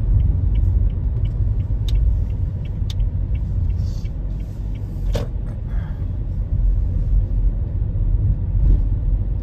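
Car cabin rumble from road and engine while driving, with a turn-signal indicator ticking about three times a second as the car turns; the ticking stops about three seconds in, and a single sharp click comes about five seconds in.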